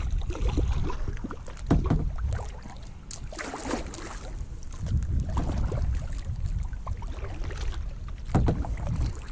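Knocks and bumps of handling on a kayak, over low wind rumble on the microphone, with a brief hissing rush about three to four seconds in.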